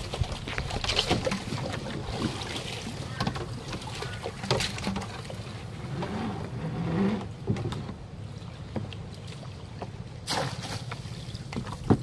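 Water splashing and sloshing around a small paddled boat, with a few sharp knocks, about four seconds in and again near the end, over a low steady rumble.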